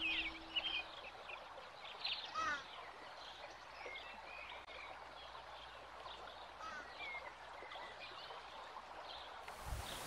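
Birds chirping: many short, high calls over a faint steady outdoor hiss. A held low tone fades out about a second in.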